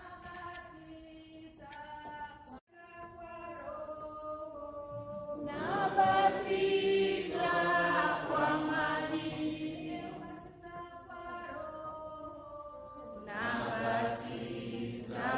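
Congregation singing a hymn: a thin line of voice at first, then fuller, louder singing from about five seconds in, easing off and swelling again near the end.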